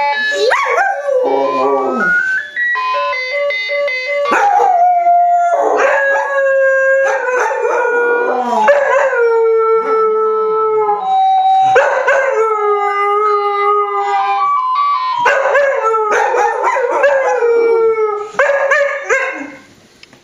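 Two Clumber spaniels howling at a ringing phone: a string of long drawn-out howls, each sliding down in pitch, over a phone's stepped electronic ringtone melody heard near the start.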